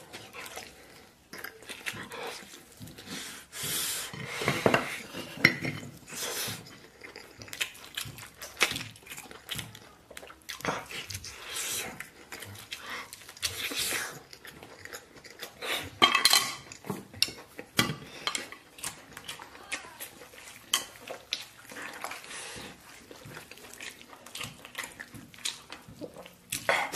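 Close-up eating sounds: chewing and mouth noises, with utensils clicking against dishes at irregular moments.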